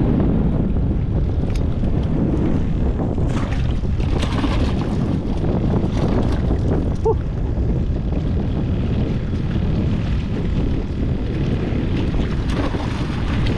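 Wind buffeting the microphone outdoors, a steady low rumble.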